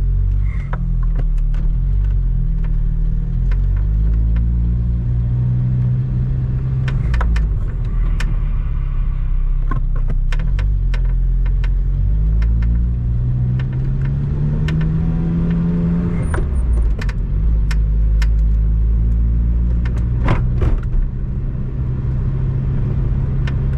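Cabin sound of a Lotus sports car on the move, engine running and rising in pitch about halfway through before dropping back, with repeated short creaks over it from the driver's footwell or left side of the dashboard. It is more of a creak than a squeak, heard while rolling and not tied to engine speed.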